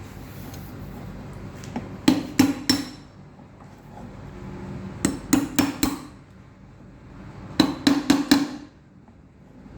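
Small hammer tapping on the metal parts of a Toyota ignition lock cylinder to seat them during reassembly: three quick runs of four or five sharp taps each.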